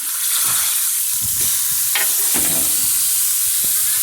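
Tomatoes frying in hot olive oil, a steady loud sizzle, with a few light knocks and scrapes of a utensil in the pan.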